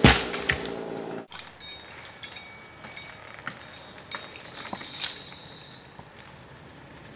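Chainsaw running with a loud thud right at the start, then the saw cuts off abruptly about a second in. Birds chirp and small wood cracks follow.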